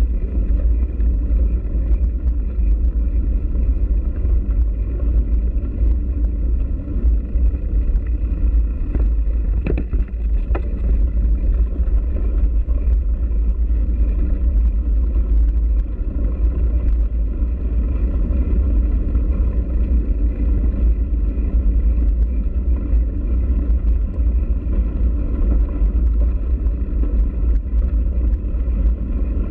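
Steady low rumble of wind buffeting a bike-mounted camera's microphone, mixed with bicycle tyres rolling over a gravel track. A couple of sharp clicks come about ten seconds in.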